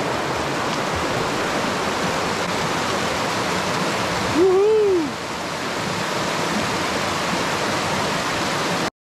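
Mountain river rushing steadily at a wading crossing, with one short rising-and-falling vocal sound about halfway through. The sound cuts off abruptly near the end.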